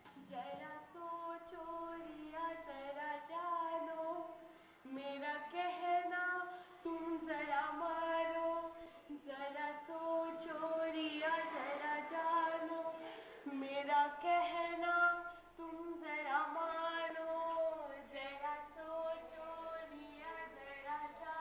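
A song sung by a woman and children, from a film's soundtrack played back over a hall's speakers, in phrases of a few seconds with short breaks.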